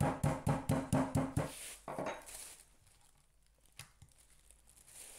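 Metal meat mallet pounding chicken breast through a plastic bag on a wooden cutting board: a fast run of dull knocks, about five a second, stopping about a second and a half in. A brief crinkle of the plastic bag follows as it is lifted off the flattened fillet.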